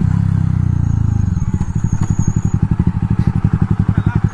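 Jawa Perak's single-cylinder engine through a loud aftermarket exhaust, dropping from a higher speed to idle about a second in, then idling with a lumpy exhaust beat of about ten pulses a second.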